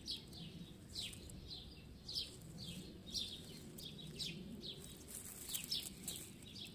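Small songbird chirping steadily, a run of short high notes that each sweep downward, about two or three a second, over a faint low background rumble.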